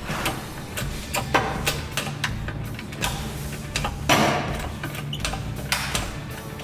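Irregular metal clicks and knocks, with one louder knock about four seconds in, as a bearing driver is worked against the wheel bearing seated in a steering knuckle.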